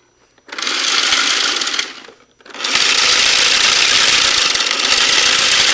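Battery-powered motor of an Air Zone toy minigun spinning its plastic barrel cluster, a mechanical whir with a rattle. It runs in two bursts: a short one about half a second in, then, after a brief pause, a longer one from about two and a half seconds in.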